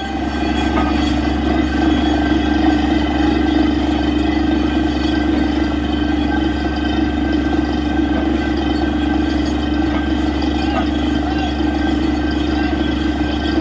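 Truck-mounted borewell drilling rig running steadily while water struck at about 315 feet gushes up out of the borehole in a heavy spray, with engine hum and rushing water blended together.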